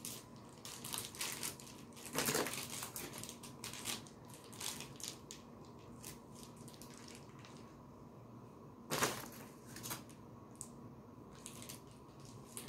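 Intermittent crackling and crunching of Takis rolled tortilla chips and their crinkly chip bag as the chips are taken out and pushed into cream-cheese-stuffed peppers, with two louder bursts of crunching.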